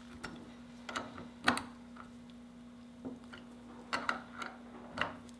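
Scattered metallic clicks and taps of a combination wrench on the brake arm pinch bolt of a Honda CB450 rear brake panel as the bolt is tightened, irregularly spaced, with the loudest tap about a second and a half in.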